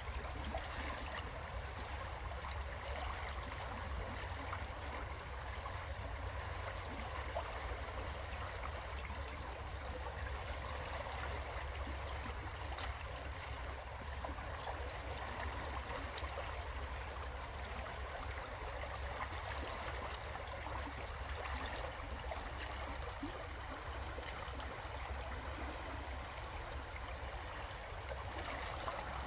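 River water flowing over rocks: a steady, even rush of water with fine splashy detail, over a constant low rumble.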